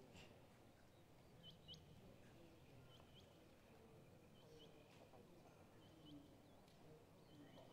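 Near silence: faint outdoor air with soft high chirps, mostly in pairs, about every second and a half, from a small bird.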